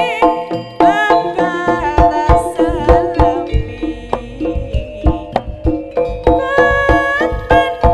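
Live jaranan gamelan music: kendang hand drums beating a fast, dense rhythm under gong-chime metallophones and gongs, with a wavering melodic lead held over the top.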